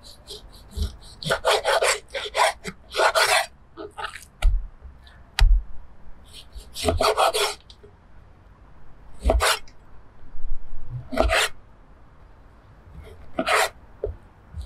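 Large kitchen knife slicing through raw beef on a wooden cutting board: each drawn stroke rasps through the meat, with a dull knock as the blade meets the board. A quick run of strokes comes in the first few seconds, then single cuts about every two seconds.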